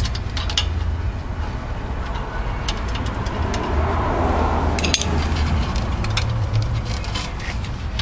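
Hand tools clinking and scraping against the metal of a VW GTI's rear brake caliper: a scatter of sharp clicks and knocks, clustered around the middle, over a steady low hum.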